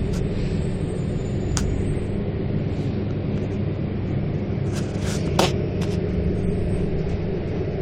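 Metro train carriage interior: steady low rumble and hum of the train, with a few sharp clicks.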